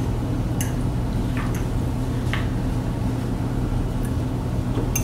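Steady low hum of a room air conditioner, with a few soft clicks of a fork against a plate.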